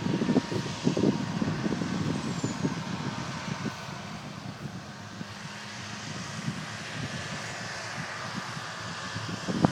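Tractor engine running steadily while mowing grass, with irregular low rumbling for the first couple of seconds and a single sharp knock near the end.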